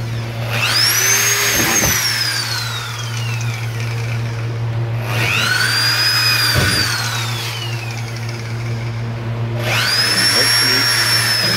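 Handheld power tool, most likely an electric drill, run in three bursts of a few seconds each. Each time the motor whine climbs quickly to a high pitch, holds, then winds down slowly as the trigger is released, over a steady low hum.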